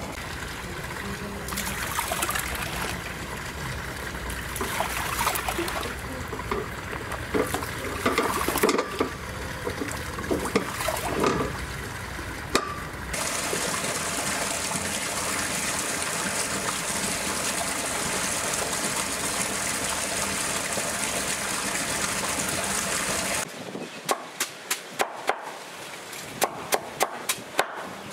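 Water splashing and trickling, then a steady rush of running water for about ten seconds that cuts off abruptly, followed by a run of sharp knocks.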